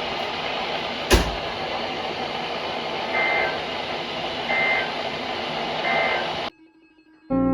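Three short, chirping Emergency Alert System data bursts over NOAA Weather Radio, about a second and a half apart, over a steady hiss of radio static, with a single click about a second in. The three bursts are the EAS end-of-message code that closes the alert test; the audio cuts off near the end.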